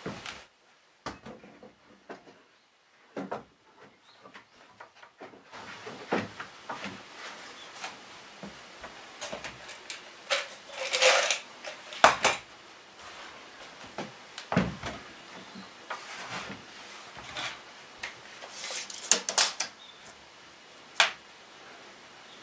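Lengths of lumber being handled and fitted onto an old wooden cabinet frame: scattered knocks and clacks of wood on wood, with a longer scrape about halfway through and a quick cluster of knocks near the end.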